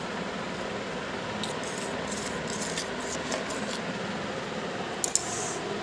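A metal spoon scraping and clinking against a glass bowl as it spreads a thick paste, in short bursts, with two sharp clicks about five seconds in. Under it the steady whoosh of an electric fan.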